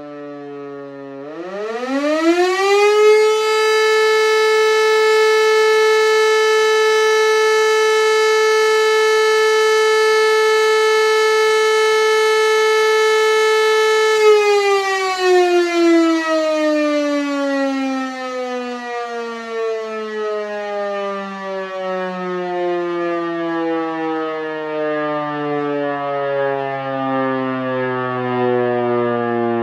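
Hörmann E57 three-phase electric civil-defence siren winding up from a low pitch to its full tone in about two seconds. It holds a steady, loud tone for about eleven seconds, then winds down slowly as the rotor coasts.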